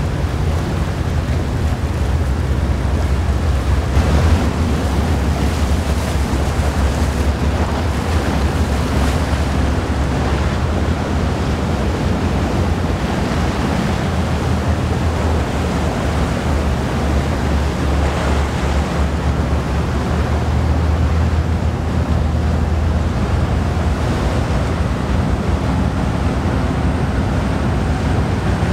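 Tugboat's diesel engines working with a steady low drone under the rush of water churned between the tug and the container ship's hull, with wind buffeting the microphone.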